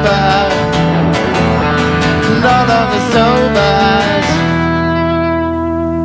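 Small rock band of electric guitar, acoustic guitar and bass guitar playing the closing bars of a song: chords until about four seconds in, then a final chord left ringing and slowly fading.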